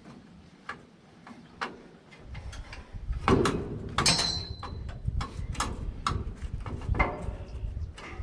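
Scattered metal knocks and clanks from working steel cross pieces loose from the chains of a New Holland 851 baler. About four seconds in there is one sharp clang that rings briefly. A low rumble runs underneath from about two seconds in.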